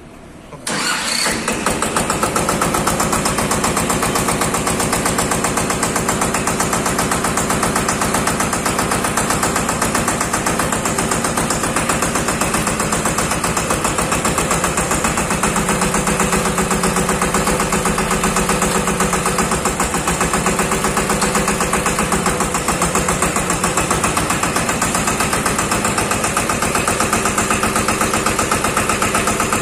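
Massey Ferguson 5118 18 hp mini tractor's diesel engine starting about a second in, then running steadily at idle with an even, rapid pulse.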